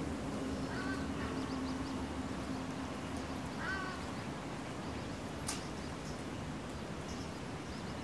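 Open-air park ambience: a steady hiss with a few short bird calls, one about a second in and another near four seconds, and a single sharp tick about halfway through.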